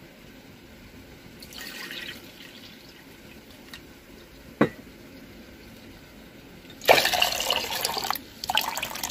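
Water poured from a steel vessel into a pressure cooker pot of cooked masala, in two loud splashing pours near the end. A single sharp clink about halfway through.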